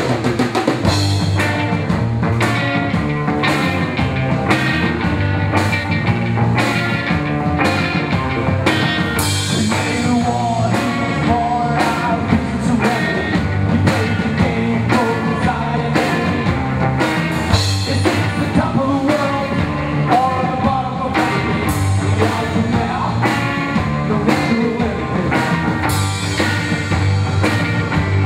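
Rock band playing live: electric guitars, bass guitar and drum kit come in together at full volume, with a male voice singing over them.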